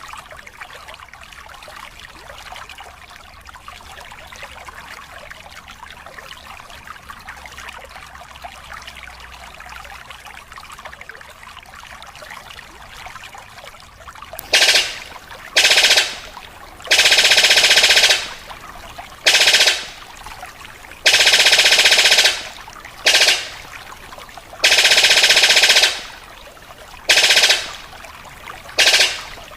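Steady trickling, like a stream. About halfway in, a bird known as paruh sabit starts calling in loud, rapid, rattling bursts, about ten of them, some brief and some a second long, sounding like gunfire.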